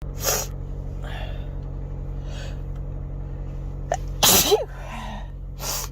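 A person sneezing three times, with quick breaths and sniffs between. The second sneeze, about four seconds in, is the loudest, with a voiced 'choo'. A steady low hum of the car cabin runs underneath.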